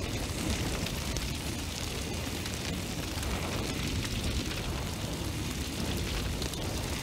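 A flame burning: a steady rushing noise over a deep low rumble, with no distinct pops.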